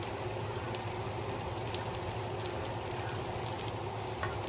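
Food sizzling in a pan on the stove: a steady hiss with scattered small pops and crackles.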